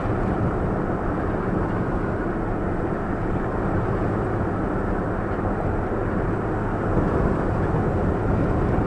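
Steady engine and road noise heard from inside a moving vehicle's cab, even and unbroken, with no sudden knocks.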